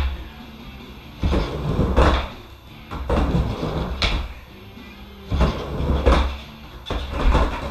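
Skateboard wheels rolling back and forth across a wooden mini ramp, with a rumble that swells each time the board runs through the bottom, about four passes. Sharp clacks come as the trucks and tail hit the coping at the top.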